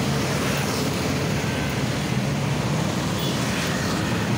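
Steady background rumble with a constant hiss, even and unbroken, like running vehicle or engine noise.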